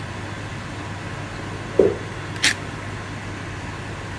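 A short knock a little under two seconds in, then a brief puff from an aerosol spray paint can about half a second later, over a steady background hum.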